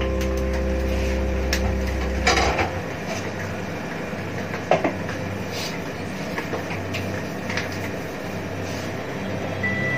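Spatula scraping and clacking in a frying pan as cubed squash is stirred, then scattered clinks as a glass lid is handled and set on the pan, the sharpest clink about five seconds in. Soft background music with held notes plays under it and thins out after a couple of seconds.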